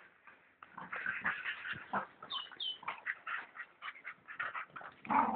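Two dogs fighting, a mastiff–pit bull cross and a Staffordshire bull terrier, growling and snarling in short irregular bursts, with two brief high-pitched cries a little over two seconds in.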